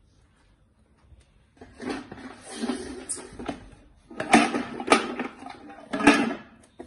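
Wooden Jenga blocks rattling and clattering inside their tub as a hand rummages for more, starting about a second and a half in, with a few louder knocks.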